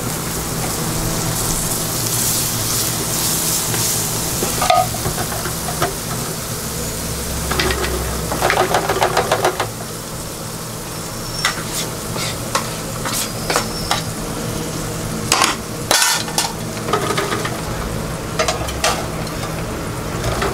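Hot oil sizzling steadily as falafel balls deep-fry, with halloumi frying on an electric grill beside them. Metal utensils click and clatter throughout, with a rapid rattle about eight seconds in.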